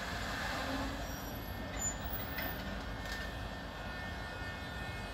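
Bombardier Traxx F140 DC electric locomotive starting off slowly with a freight train: a steady low rumble and hiss with a faint high whine.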